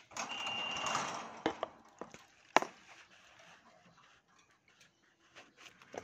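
A few sharp clicks and taps on a wire bird cage, the loudest about two and a half seconds in. They follow a short hiss carrying a brief high, steady whistle at the start.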